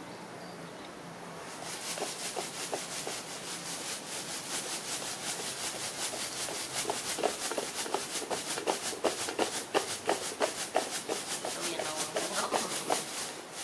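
Rapid, scratchy crunching and rustling, several strokes a second, starting about two seconds in: baby monkeys chewing and tearing fresh green plant stalks and leaves.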